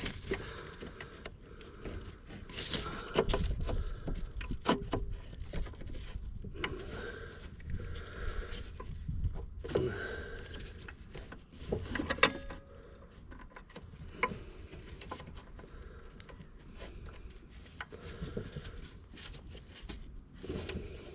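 Locking pliers (mole grips) being clamped onto and twisted against a seized, broken battery clamp stud: scattered metallic clicks and knocks as the grips are worked, without the stud turning.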